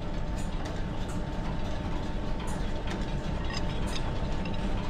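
Steady mechanical running hum of a belt-driven workshop drive, with a few light metallic clicks as a steel square-thread leadscrew is offered into a bronze nut held in a lathe chuck.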